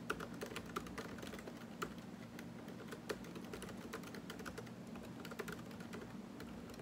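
Typing a text message on a smartphone: light, irregular taps and keyboard clicks, several a second with a few louder ones, over a faint low room hum.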